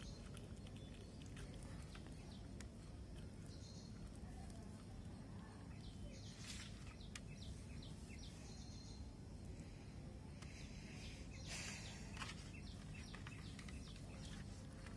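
Quiet outdoor background with a steady low rumble and a few short bird chirps. Two brief scraping, rustling noises come about halfway through and again near the end, from hands handling a raw fish and pulling out its gills.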